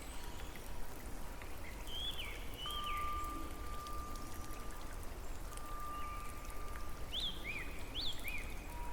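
Birds calling: two falling chirps about two seconds in and four quick chirps near the end, with long steady whistled notes between them. Underneath is a soft patter of dripping, trickling water.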